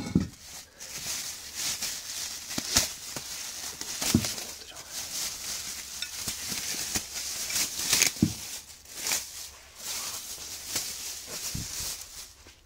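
Clear plastic bag crinkling and rustling as it is handled around a compressor piston block, an irregular run of sharp crackles, with a couple of duller knocks about four and eight seconds in.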